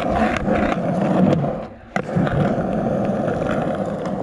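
Skateboard wheels rolling over rough asphalt in a steady grinding rumble. About halfway through the rolling briefly dies down, there is a sharp click, and the rumble picks up again.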